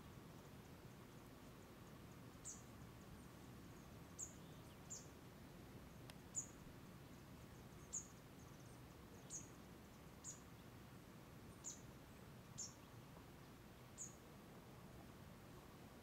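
A small bird repeating a short, very high chirp about ten times, roughly once every second or so, over a faint steady background hiss.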